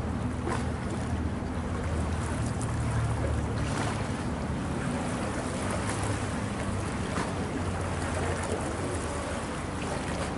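Boat engine running steadily with a low hum, under the rush of water and wind on the microphone.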